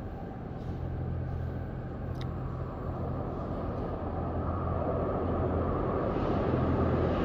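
RER C Z 20500 double-deck electric train approaching through the tunnel into an underground station, its rumble growing steadily louder over a steady low hum.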